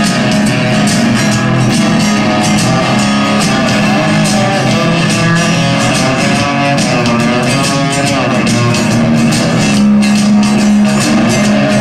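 Homemade six-string guitar built from a two-by-four board, amplified and played as an instrumental: held low notes under higher notes that waver and glide in pitch.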